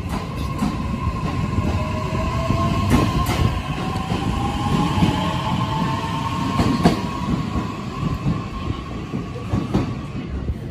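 JR East E131-0 series electric multiple unit pulling away, its traction motor whine rising in pitch as it gathers speed over a constant tone, with a rumble underneath and sharp clacks of wheels over rail joints now and then.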